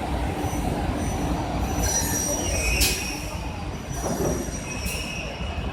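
uPVC window welding and corner-cleaning machines running, a steady mechanical noise with thin high-pitched squeals. There is a sharp click about three seconds in and another near the end.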